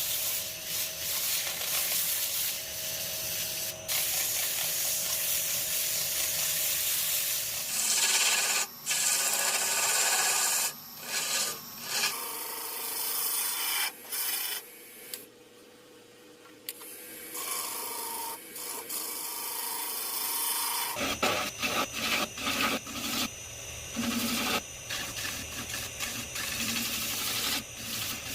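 Turning tool cutting into wood spinning on a lathe: a steady scraping, rasping noise that changes abruptly several times, with a quieter stretch about halfway through.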